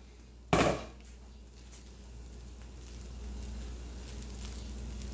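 The pan's glass lid lands with a single clatter about half a second in. Then a spatula scrapes and turns rice in a nonstick pan, with a faint sizzle that grows a little louder.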